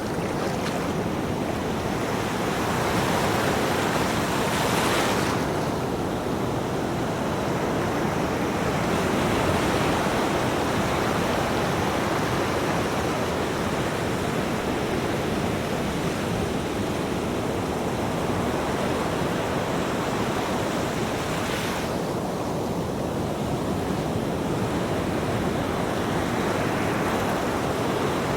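Ocean surf: a continuous wash of breaking waves, swelling and easing, with brighter rushes of spray about five seconds in and again near the end.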